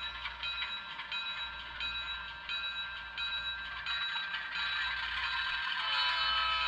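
Sound decoder of an HO scale Atlas ALCO diesel locomotive ringing its bell at about two strokes a second as it crosses a road, over the low hum of the model's diesel engine sound. A steady tone joins near the end.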